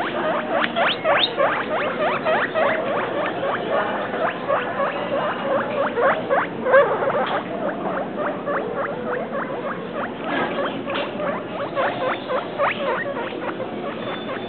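Guinea pigs squeaking: many short rising squeaks in quick succession, several a second, with one louder squeak about seven seconds in. The squeaks thin out briefly and pick up again around ten seconds in.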